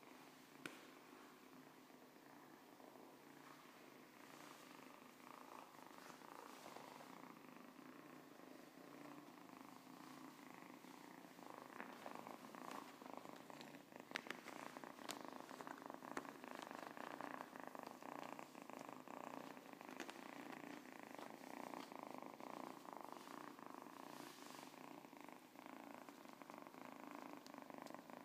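Siamese kitten purring softly and steadily while being stroked, the purr growing louder about halfway through. A few small clicks come in here and there.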